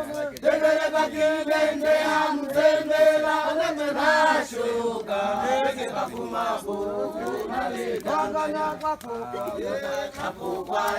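Several voices chanting together, holding long notes with short breaks between phrases.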